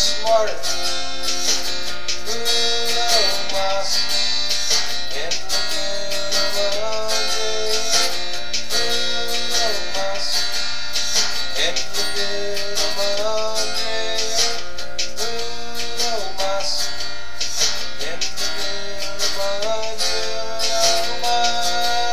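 Background music: a song played on strummed acoustic guitar.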